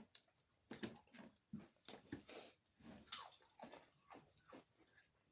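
Someone chewing a mouthful of crunchy Cheddar Goldfish crisps, a run of faint, irregular crunches.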